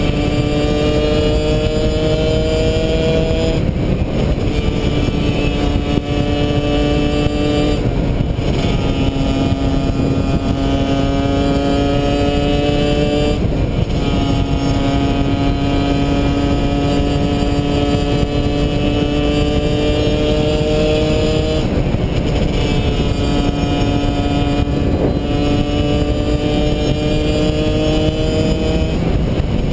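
Husqvarna 125 WRE's two-stroke single with a Giannelli exhaust, ridden at speed. The engine note climbs slowly, then dips at short breaks every few seconds as the throttle is eased and picked up again. Heavy wind noise on the helmet-mounted microphone runs under the engine.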